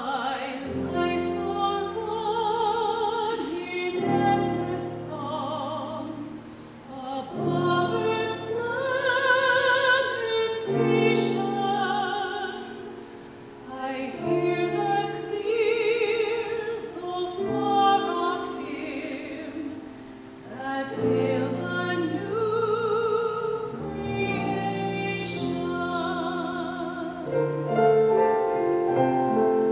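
Classical-style singing with a wide vibrato over a piano accompaniment, in sung phrases a few seconds long with short breaths between them.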